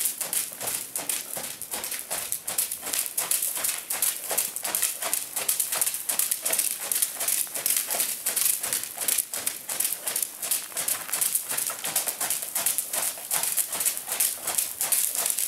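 Horse trotting on soft sandy arena footing: a steady, even rhythm of muffled hoofbeats.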